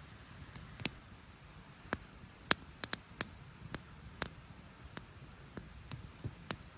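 Campfire crackling: burning wood giving off sharp, irregular pops and snaps, a dozen or so scattered over a few seconds, over a faint steady hiss.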